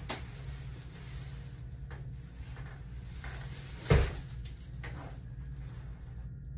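Knocks and clunks from a folding massage table with a padded top and wooden legs as it is shifted and forced at its hinges: a few light knocks and one sharper, louder clunk about four seconds in.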